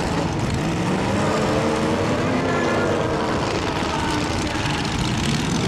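Demolition derby cars' engines running and revving, their pitch rising and falling over a constant din.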